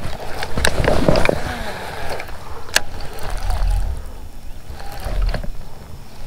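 A baitcasting rod and reel being handled from a kayak: a few sharp clicks, over a low rumble.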